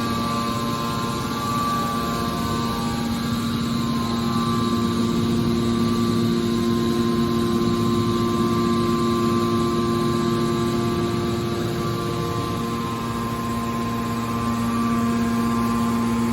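Hydraulic metal press baler running with a steady hum from its pump and motor.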